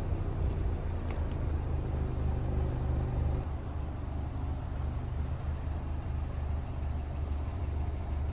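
Subaru Legacy B4 2.0GT spec.B's EJ20 turbocharged flat-four engine idling steadily.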